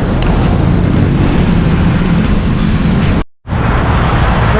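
Road traffic: vehicle engines running close by in a steady low rumble, cutting out briefly about three seconds in.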